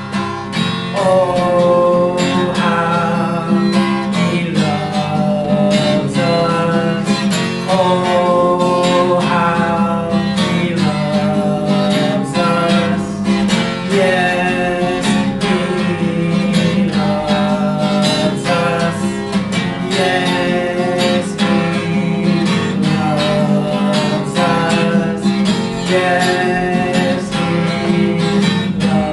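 Acoustic guitar strummed steadily, accompanying a slow worship song.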